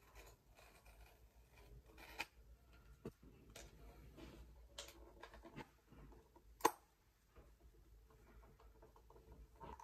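Faint scattered clicks and light rustling of something being handled, with one sharper click a little past halfway through.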